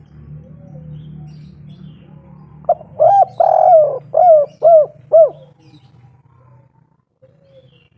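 Spotted dove (derkuku) singing one cooing phrase about three seconds in: a short note, a long falling coo, then three short arched coos, the 'kuk 3' song type that ends on three notes. A faint low hum runs underneath.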